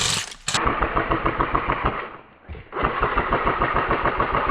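Airsoft electric gun (AEG) firing on full auto in two long bursts of rapid, evenly spaced shots, with a brief pause about two seconds in: suppressive fire.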